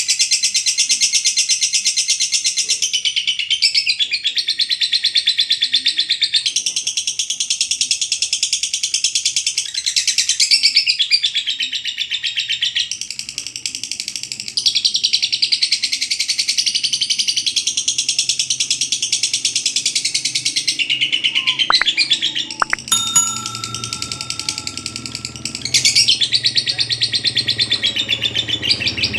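Lovebird singing its long 'ngekek' chatter: rapid, high-pitched trilling in unbroken phrases of several seconds, with short breaks between them.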